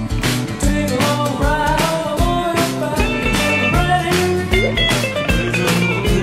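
Background music: a band with drums keeping a steady beat under bass and guitar.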